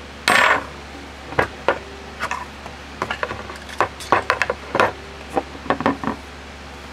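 Small metal brake caliper parts clinking and tapping on a hard surface in a string of sharp, irregular knocks, with a short scrape near the start.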